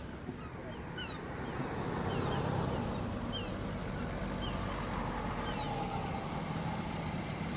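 Birds chirping in short, repeated calls, one every second or so, over a steady low rumble like idling vehicle engines.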